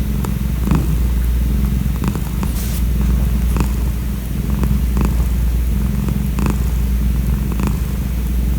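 A calico cat purring steadily, close up and loud, with scattered small clicks over the purr.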